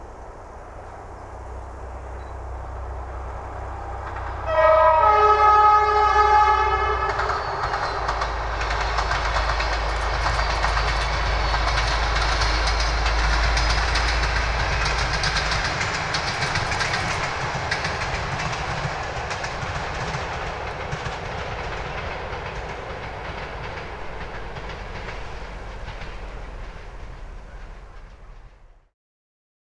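SU46 diesel locomotive sounds one long horn blast about four seconds in, its pitch dipping briefly at the start. The locomotive and its passenger coaches then run past, the engine rumbling and the wheels clattering on the rails. The sound slowly fades and cuts off near the end.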